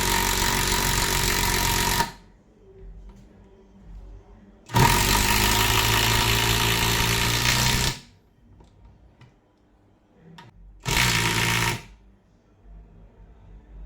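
Impact driver rated at 120 N·m running in three trigger bursts: the first cuts off about two seconds in, a longer run of about three seconds follows, and a short burst of under a second comes near the end. Each burst is a loud, even mechanical rattle over a steady motor whine, with faint clicks in the pauses between.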